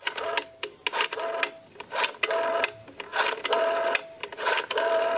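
Rotary-dial telephone being dialled: the dial clicks and whirrs back again and again, about once a second.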